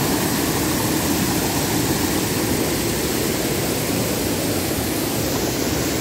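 River rapids of muddy water running high after heavy rain, rushing over rocks: a steady, loud rush of water.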